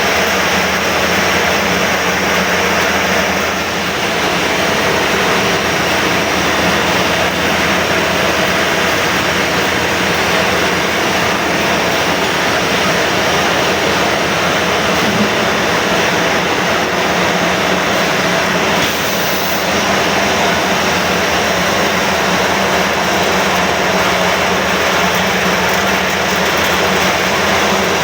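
Spice pulverizer milling machine running steadily with a loud, even mechanical roar and a low hum.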